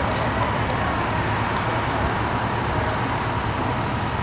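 Steady low rumble of vehicle traffic and engines, unbroken throughout.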